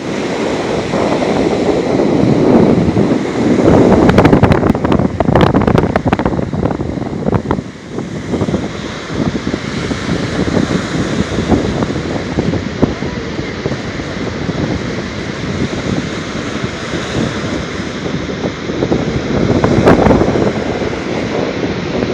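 Stormy sea surf breaking on the shore, with wind buffeting the microphone. The noise swells a few seconds in and again near the end, with crackling gusts about five seconds in.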